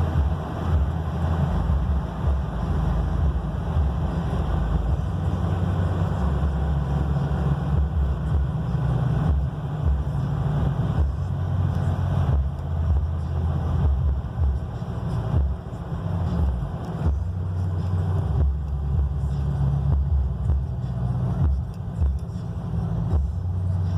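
1999 Ford F-150 pickup driving: a steady low rumble of engine and road noise that swells and dips unevenly.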